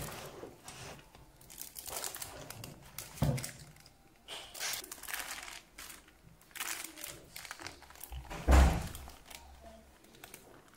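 Baking paper crinkling and rustling as a loaf cake in its paper liner is lifted from a metal loaf pan and the paper is peeled away, with a few soft knocks and one heavy dull thump toward the end as the cake is set down.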